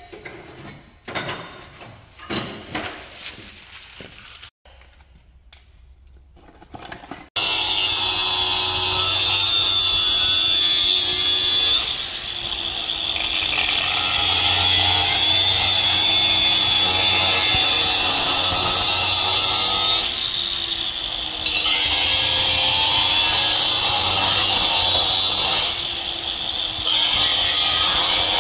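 A few scattered knocks, then about a quarter of the way in an electric angle grinder starts up and its cut-off disc bites into a metal exhaust pipe. It cuts steadily, with brief dips in level as the disc eases off the pipe.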